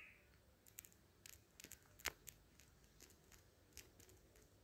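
Near silence broken by a few faint, short clicks of a stylus tip tapping on a tablet screen while writing, the loudest about two seconds in.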